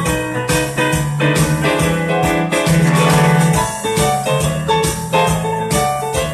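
Digital piano playing a fast blues groove, with steady low left-hand bass notes under quick, rhythmic right-hand chords.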